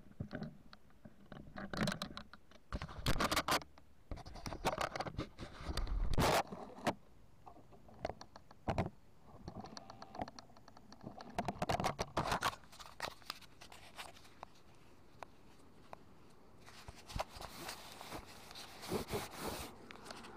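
Irregular scratching, scraping and clicking right at the microphone, in short bursts a few seconds apart, with a denser stretch of scraping near the end: contact and handling noise on a GoPro mounted on a radio-controlled truck.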